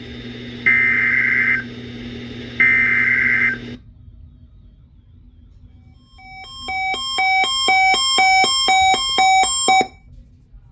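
Emergency Alert System SAME header tones: two loud, buzzy digital data bursts about a second long, a second apart, over a steady hum that cuts off. After a short pause comes an electronic attention alert tone, pulsing about three beeps a second for roughly three and a half seconds, which announces the next alert message.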